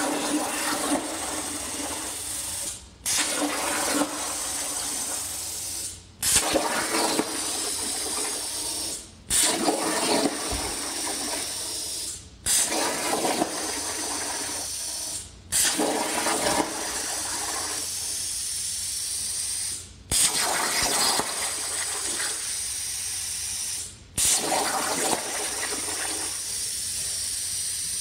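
Hypertherm Powermax85 plasma cutter arc hissing loudly as the CNC torch cuts 3/16" mild steel. The arc shuts off for a moment and re-fires about seven times, with a sharp burst each time it relights at a new cut.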